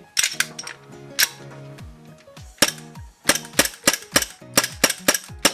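Kublai P3 gel-ball gas blowback pistol, a Glock 19 Gen5 copy, firing about a dozen sharp cracking shots as the slide cycles. The shots come singly at first, then in a quicker string of about three a second in the second half. Background music plays throughout.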